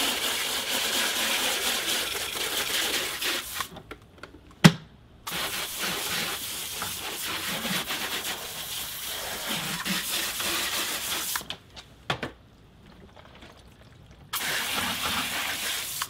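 Garden hose spray nozzle spraying water onto a robotic pool vacuum and paving stones, in three long bursts that stop and start again. A single sharp knock in the first gap, a little under five seconds in.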